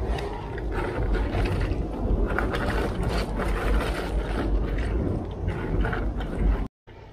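Bicycle tyres crunching over loose gravel, with the bike rattling and clicking over a heavy low rumble. The sound cuts off abruptly near the end and comes back much quieter.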